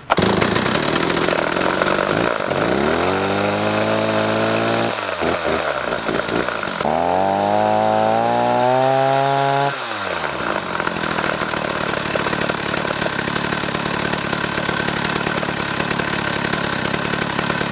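Two-stroke petrol chainsaw just started cold on choke, running: the engine is revved up twice, its pitch climbing to a high whine and dropping back each time, then settles into a steady idle about ten seconds in.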